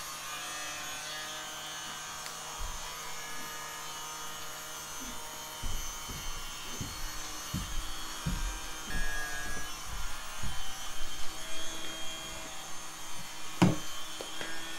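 People eating homemade momos: soft, irregular chewing and handling noises of hands and plates, over a steady electrical hum. A sharper knock comes near the end as a plate is set down on the table.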